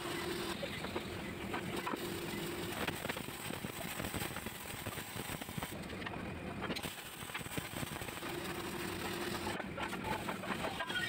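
Steady workshop machinery noise, with a faint hum that comes in twice, near the start and again about eight seconds in.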